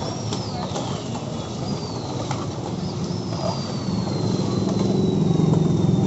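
Street traffic noise, with an engine getting louder about four seconds in. Thin high tones slide slowly downward over it, and there are a couple of sharp clicks.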